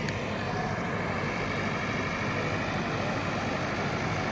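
A vehicle engine running steadily, with a faint high whine over it.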